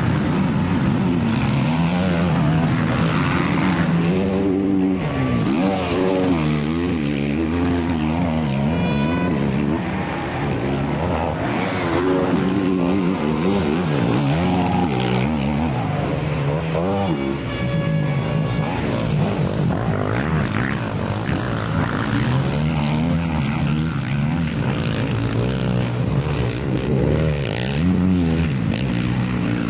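Several enduro motorcycle engines revving hard, their pitch climbing and dropping over and over as the riders work the throttle through the track.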